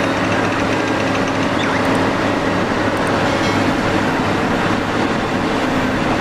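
Steady, loud mechanical running noise with a constant low hum, like a large vehicle engine running.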